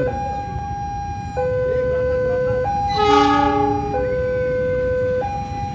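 Level crossing warning alarm sounding two alternating tones, a higher and a lower one, switching about every 1.3 seconds. About three seconds in, a departing diesel train gives a short horn blast, over a steady low rumble.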